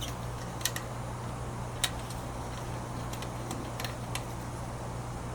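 A few sharp, light metallic clicks of bolts being hand-threaded and parts handled while fitting a turbo oil line, over a steady low hum.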